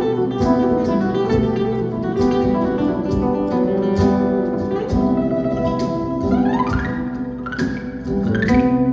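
Acoustic guitar played live: plucked notes and chords ringing, with a quick rising run of notes about six seconds in.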